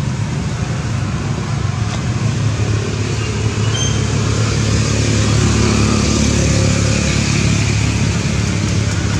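A motor vehicle's engine running, a steady low hum that swells a little about halfway through.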